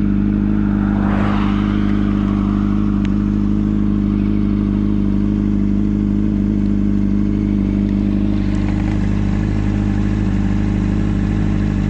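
Honda CBR600RR's 600cc inline-four engine running at a steady pitch while riding, with a brief rush of noise about a second in.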